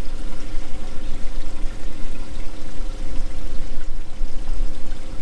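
Water pouring and splashing steadily, with a steady low hum underneath.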